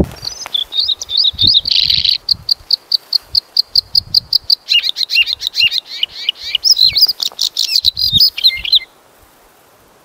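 Bluethroat singing. A high, fast song opens with a long run of identical notes repeated about nine times a second, then breaks into a varied stretch of notes with quick downward slurs. It stops abruptly about nine seconds in.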